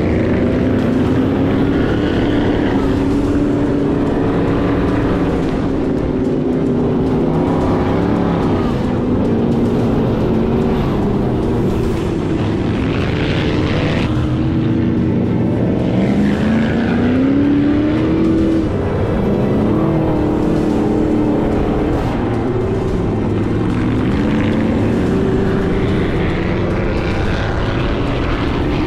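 Sand rail engine running hard, its pitch rising and falling again and again as the throttle is worked.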